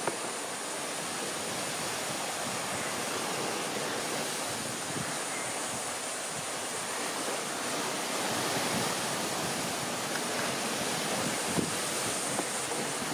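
Steady rushing background noise, with a couple of faint knife taps on a plastic cutting board near the end.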